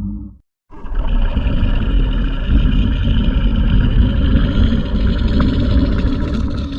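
A loud, steady engine-like rumble that starts about a second in and holds without clear revving.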